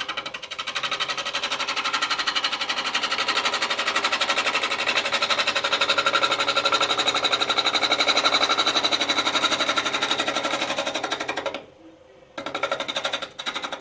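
Bowl gouge cutting into a lopsided wood blank spinning on a lathe: a fast, steady rattling chatter while the blank is being rounded. The cut stops briefly near the end, then comes back in a few short touches.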